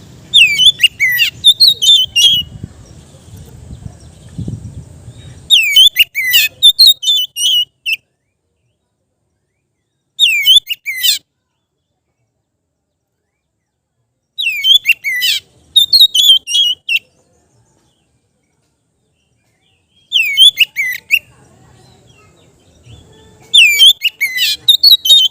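Oriental magpie-robin (kacer) singing in its loud, free 'ngeplong' style: about six bursts of rapid sweeping whistled notes, separated by short silent pauses.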